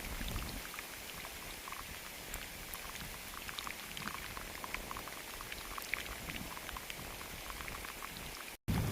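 Steady rain falling, a constant hiss with many individual drops ticking through it. The sound drops out for a moment near the end.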